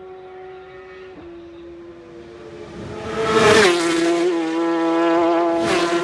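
Superbike race motorcycles running flat out at high revs. The engine note swells quickly and peaks with a sudden drop in pitch as one bike sweeps past just after halfway, and a second short surge follows near the end.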